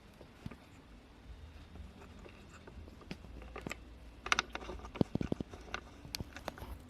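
Light clicks and taps of hands handling small plastic parts, scattered at first, with a quick run of sharper clicks about four to five and a half seconds in.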